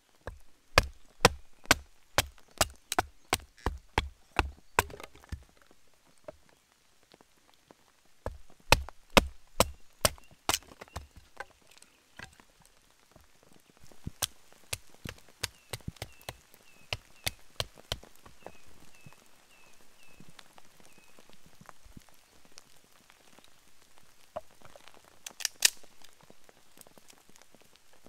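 Knife being batoned through a wooden stick to split it: a wooden baton knocks on the knife's spine about twice a second in two runs, then lighter knocks, with a loud cluster near the end. Faint rain in the background.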